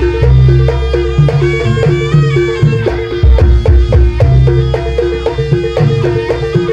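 Live Javanese traditional ensemble music accompanying a buto dance: drums and struck gongs and metallophones keep a steady beat under a sustained melody line.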